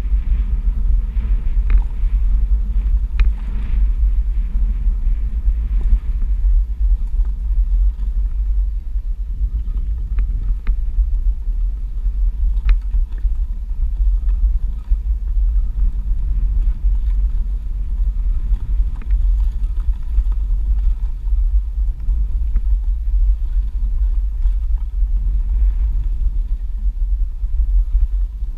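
Steady low rumble of wind on the microphone and a Onewheel XR+ electric board's tyre rolling over a gravel and dirt trail, with a few sharp ticks from stones under the tyre.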